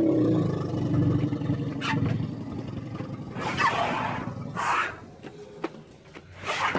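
Asian elephants at close range giving a deep, pulsing rumble that fades about three seconds in, followed by short breathy, higher-pitched blasts, twice in quick succession and once more near the end.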